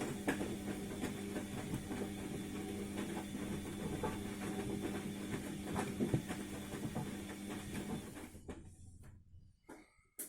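ATLANT front-loading washing machine in its wash cycle: the motor hums as the drum turns and the load of rags tumbles with many irregular soft knocks. About eight seconds in the drum stops, as in the pause between drum reversals, and a single click follows near the end.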